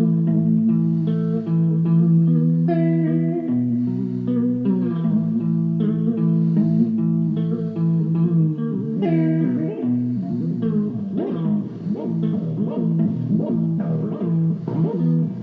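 Guitar played through a homemade stompbox's vibrato/chorus pitch section, held notes and chords wavering in pitch. About nine seconds in the wobble turns much deeper, the notes bending up and down continuously.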